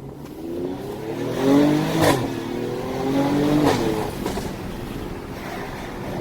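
Mercedes-AMG GLE 43's twin-turbo V6 accelerating hard, revving up through the gears, with a sharp exhaust clap at each upshift: twice, about two seconds in and again a second and a half later, then a weaker third shortly after.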